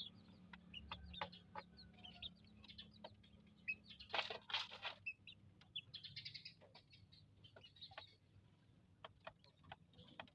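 Faint bird sounds: scattered short chirps and clicks, with a brief louder rustling burst about four seconds in.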